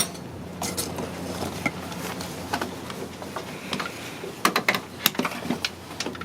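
Irregular clicks and metal taps of hand tools working the bolts on an engine's plastic timing cover, with a cluster of sharper clicks about four and a half seconds in, over a steady low hum.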